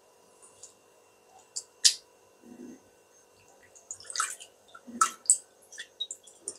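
Edible lime (chun) being mixed into a bowl of water: scattered small splashes, drips and clinks, a sharper one about two seconds in and a busier run of them past the middle.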